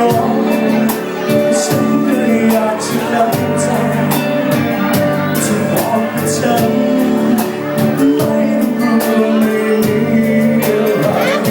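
Music: a Thai pop song with a steady beat, here in a passage with few or no sung words.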